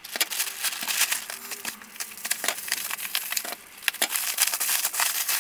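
Plastic courier satchel and bubble-wrap packaging crinkling and rustling as they are handled and unwrapped, a dense run of small crackles.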